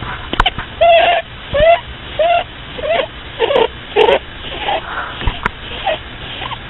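Pet rabbit snoring in its sleep: a short pitched squeak with each breath, about one every two-thirds of a second, fainter in the last couple of seconds.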